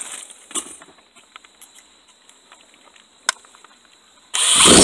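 Light clicking and handling of a drill and bit, then near the end a power drill runs briefly with a loud buzzing whir, starting to drill mounting holes in a plastic car centre console.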